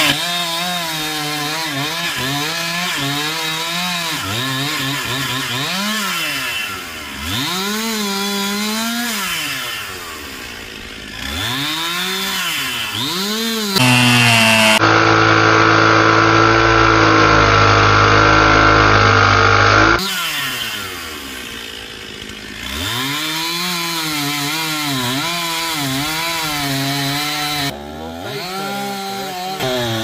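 Two-stroke Stihl chainsaw revving up and down again and again, then held at full throttle for about six seconds midway as it cuts into the tree trunk, then back to revving.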